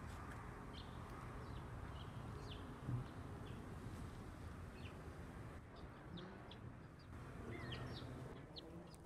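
Scattered short bird chirps over a faint steady background, with a brief soft thump about three seconds in.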